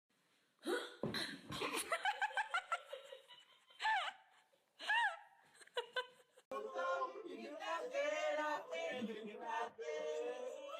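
A high-pitched voice laughing in quick bursts, then two short squeals and a longer stretch of wordless, wavering vocalising.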